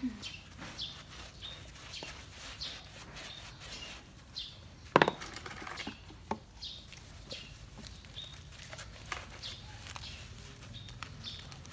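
Small birds chirping over and over, short high chirps about once a second, with one sharp knock about five seconds in.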